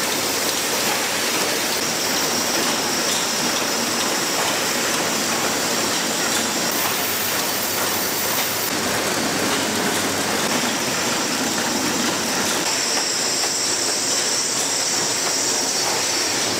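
Ice-cream bar packaging machinery running steadily, an even mechanical din from the film-fed wrapping line with a faint high whine over it.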